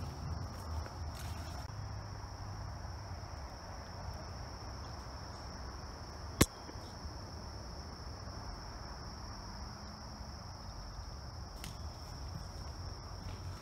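Steady high-pitched insect chorus holding one unbroken pitch in summer woods, over a low rumble, with a single sharp click about six and a half seconds in.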